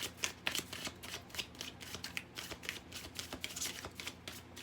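A deck of tarot cards being shuffled by hand: a quick, irregular run of soft papery flicks and slaps.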